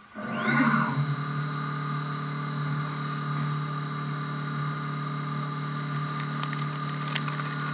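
CNC milling machine spindle spinning up with a steeply rising whine about half a second in, then running at speed with a steady high whine over a low hum as the end mill cuts an aluminium part under flood coolant.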